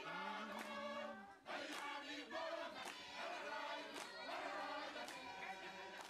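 A group of voices chanting and singing together, with a sharp beat about once a second.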